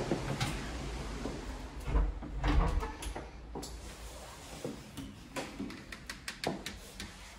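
A door latch clicks sharply at the start, then a couple of dull thuds and scattered light knocks and clicks follow, typical of footsteps and door handling while walking across a hard slate-floored hallway.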